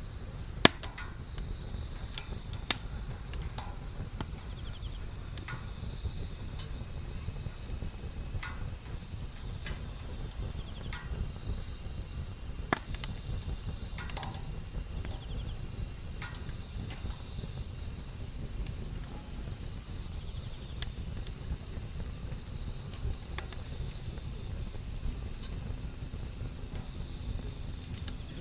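Wood campfire crackling, with scattered sharp pops, the loudest about a second in, then near 3 s and 13 s in. Insects chirp steadily in the background in a high, evenly pulsing trill, over a low rumble.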